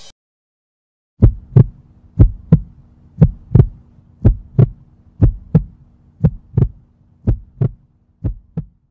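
Heartbeat sound effect: a steady lub-dub double thump about once a second, eight beats in all over a faint low hum. It starts about a second in and grows a little fainter toward the end.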